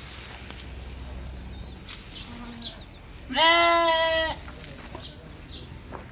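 A young sheep bleats once, loud and steady in pitch, lasting about a second, midway through.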